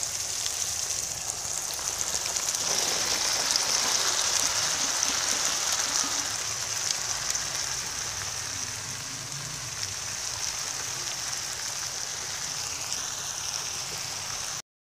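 Onion, tomato and chilli masala sizzling steadily in hot oil, still frying as chopped okra is added to the pan. The sizzle drops out briefly near the end.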